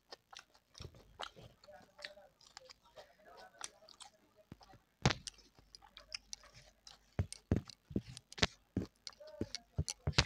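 Close-up eating sounds: wet chewing and sharp lip and tongue smacks from a mouthful of soft rice mixed with mashed vegetables, irregular and louder from about halfway through.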